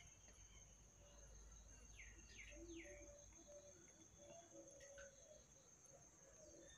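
Near silence: a quiet outdoor background with a steady high insect trill, like a cricket, and three faint falling bird chirps about two seconds in.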